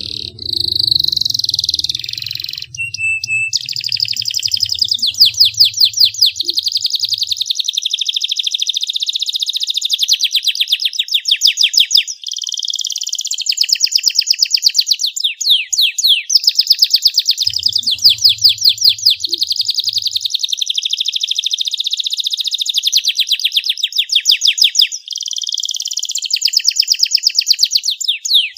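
Domestic canary singing a long, loud song of fast trills and rapid repeated notes, broken by a few short pauses.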